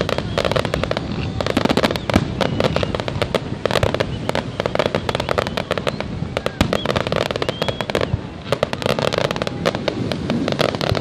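Fireworks going off: dense, rapid crackling and popping with no pause, easing briefly about eight seconds in.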